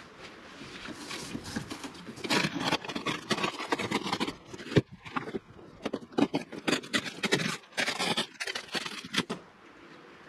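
Long cardboard umbrella box being turned over and shifted on artificial grass: a run of scraping and rubbing with sharp knocks, starting about two seconds in and stopping about a second before the end.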